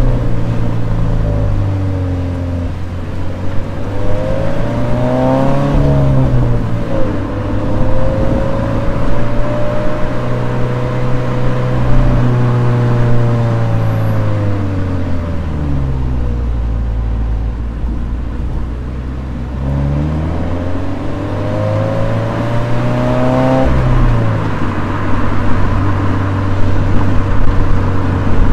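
Toyota 86's 2.0-litre flat-four engine being driven with a manual gearbox, revs climbing and falling over and over: two climbs end in quick drops about six and twenty-four seconds in, and in the middle the revs sink slowly to a low drone.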